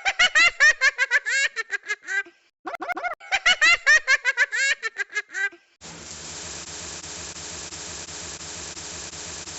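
High-pitched cartoon-cat giggling in two quick runs of rapid chipmunk-like syllables. A little before the end it gives way to a steady electric whirr, like a hair dryer.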